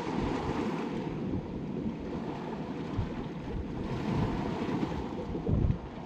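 Mediterranean surf breaking and washing over a pebble and boulder beach in a steady roar of waves, with wind gusting on the microphone, strongest near the end.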